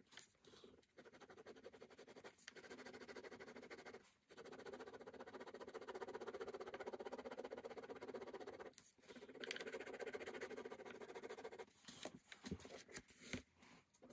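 Ballpoint pen scratching across sketchbook paper in quick, repeated hatching strokes, in stretches broken by short pauses.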